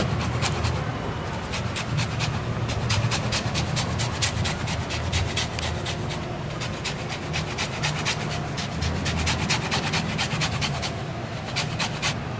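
Orange rind being zested on a flat stainless-steel hand grater: quick rasping strokes of the peel across the blades, several a second, with a short pause near the end.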